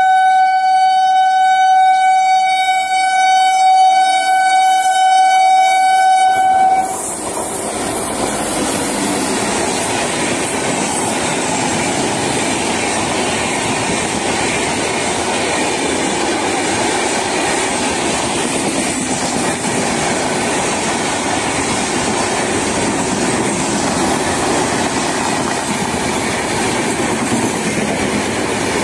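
Indian express train's locomotive horn sounding one long steady blast for about the first seven seconds. The horn then gives way to the steady loud noise of the Humsafar Express coaches running past at high speed, wheels clattering on the rails.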